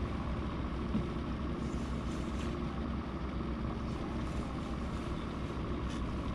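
Boat engine idling, a steady low hum.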